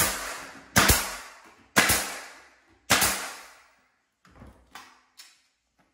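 Pneumatic nail gun firing four times about a second apart, driving nails through a door jamb into the wall framing; each shot rings away briefly. A few faint knocks follow.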